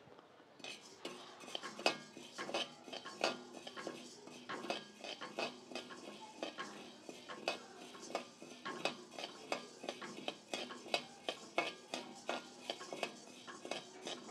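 A metal slotted spatula scrapes and knocks around a metal kadai, stirring dry chana, toor and urad dal as they dry-roast over low heat. The strokes are irregular, about two or three a second, and start just under a second in.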